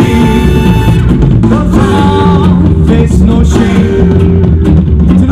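Loud music with singing, a strong bass line and a steady beat.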